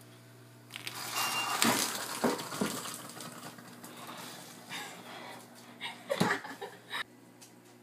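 Stovetop moka pot sputtering and hissing as the last coffee spurts into its upper chamber, starting about a second in and fading, with a few sharp metal knocks near the end as the pot is handled.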